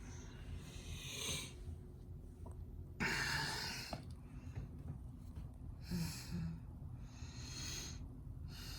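A person breathing close to the microphone, several noisy breaths a few seconds apart, the loudest about three seconds in, over a steady low hum.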